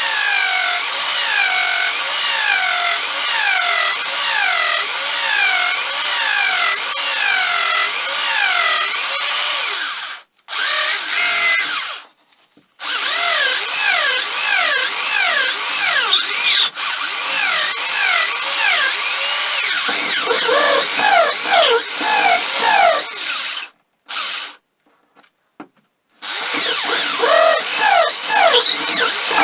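Handheld electric power tool running under changing load, its pitch dipping and recovering about once a second as it is pressed against the work. The sound breaks off briefly a few times.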